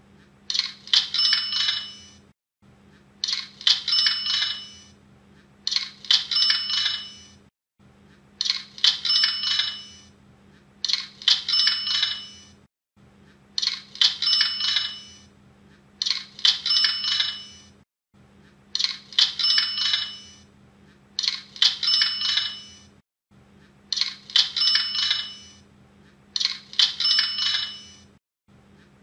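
Cash-register sound effect, the Hotmart sale-notification sound: a bell ding with coins jingling. It plays in a loop, about every two and a half seconds.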